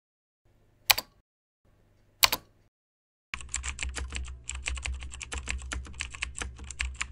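Two single sharp key clicks, then from about three seconds in a fast run of computer keyboard typing, many keystrokes a second over a low hum.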